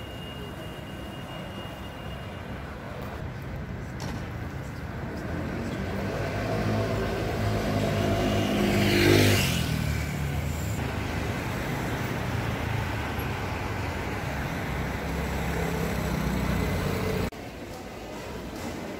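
Town-centre road traffic. A motor vehicle approaches and passes close about halfway through, its engine noise swelling to a peak and then falling away. Near the end the street noise cuts off suddenly, giving way to a quieter indoor hum.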